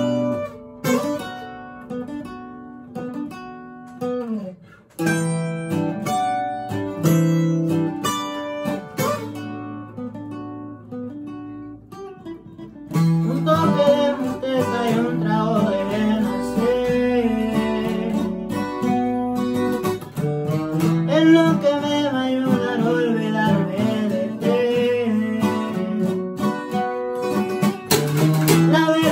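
Acoustic guitars, including a twelve-string, playing a picked and strummed instrumental intro with short breaks; about thirteen seconds in, a man's voice comes in singing over the guitars.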